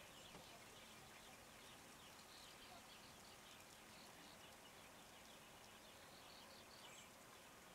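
Near silence: faint outdoor ambience with soft, scattered high chirps.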